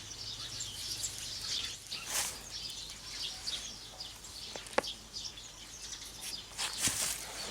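Small birds chirping over and over in the background, with two short rustling noises and a single sharp click just before the five-second mark.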